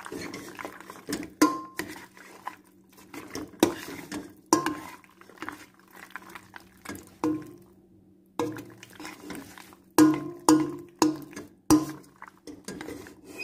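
Utensil stirring penne in a thick cheese sauce in a metal pot, knocking and scraping against the pot in irregular clacks, some with a short ring.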